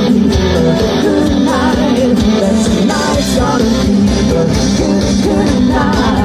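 Live band playing a pop-rock song at full volume, with a wavering sung voice over the band.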